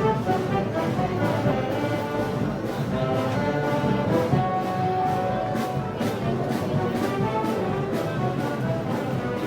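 Brass band playing Moros y Cristianos festival music, with held brass chords over a steady drum beat.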